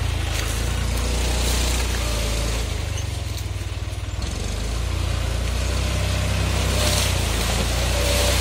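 John Deere 5310 tractor's three-cylinder diesel engine running steadily at low speed while pulling a banana-stem cutter disc implement, easing off briefly around the middle.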